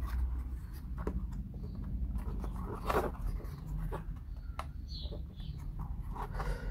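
Scattered small clicks and creaks of laser-cut plywood model parts pressed together by hand as the tram body is forced down onto its wheeled chassis, the sharpest click about three seconds in.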